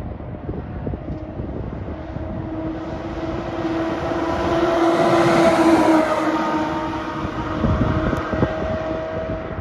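Wildland fire engine (brush truck) driving past at speed: its engine and tyre noise swell to a peak about halfway through as it passes, with a steady droning tone, then fade as it drives away.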